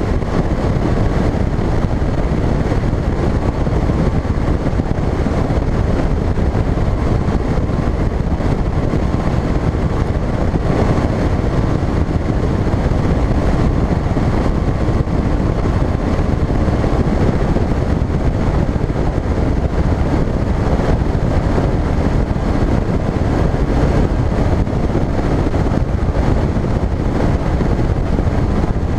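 Bass boat running at speed across open water: a loud, steady rush of wind on the microphone over the outboard motor's drone and the hull cutting through the water.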